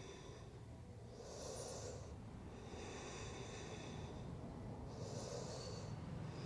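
Faint, slow breathing of a person holding a deep stretch: two breath cycles, each a drawn-out breath with a faint whistly tone followed by a shorter hiss.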